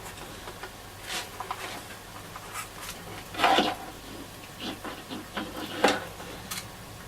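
Scattered handling noises at a workbench: light clicks, scrapes and knocks as wires and test leads are handled, the two loudest about three and a half and six seconds in.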